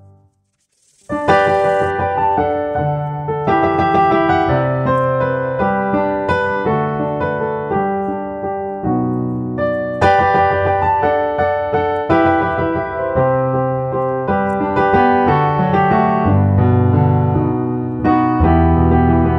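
Background piano music; a new piece starts about a second in after a brief pause.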